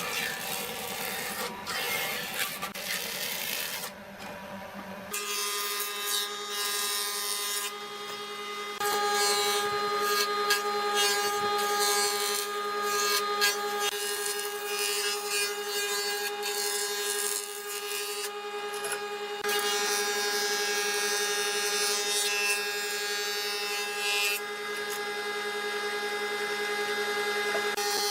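Power tool running on wood. About five seconds in, the sound changes to a steady whine over a hiss.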